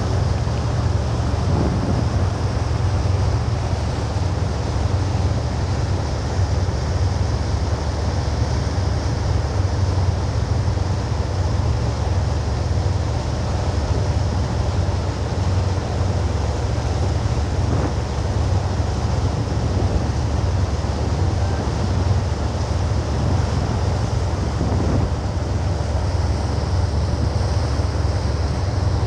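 Steady low drone of a motor boat's engine running under way, with wind buffeting the microphone and water rushing past the hull.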